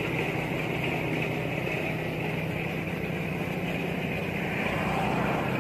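A steady, low engine-like hum, like a motor idling, under a constant high-pitched drone, with no break.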